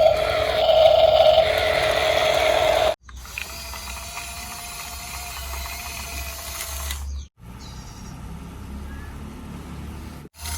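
Small electric motor and plastic gearbox of a toy RC construction vehicle whining steadily, loud for the first three seconds, then quieter. The sound cuts off abruptly three times.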